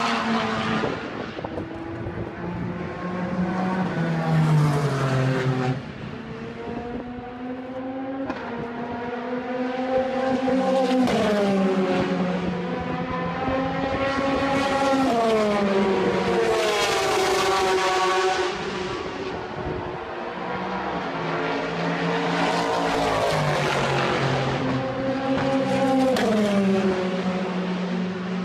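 Race car engines running in the pit lane, the engine note rising and falling again and again as cars rev and pass.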